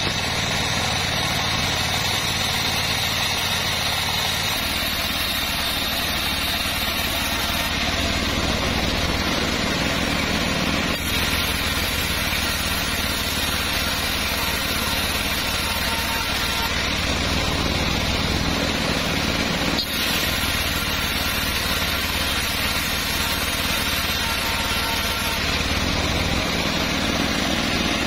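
Homemade bandsaw mill running steadily while a board is fed through the blade and ripped. A heavier low rumble sets in about four seconds in and eases off near the end.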